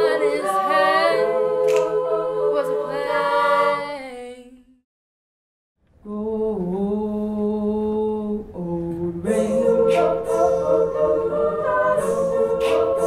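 Women's a cappella group singing held chords in close harmony. The singing fades out about four seconds in and stops for about a second, then a new passage of unaccompanied singing begins.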